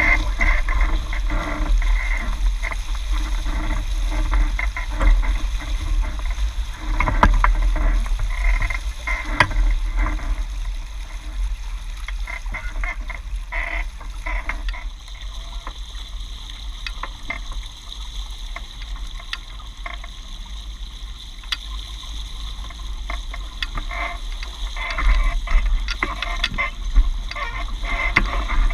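Water rushing and splashing along a Hobie 16 catamaran's hulls as it sails, with a steady low rumble of wind on the microphone. It grows quieter about a third of the way in and picks up again near the end.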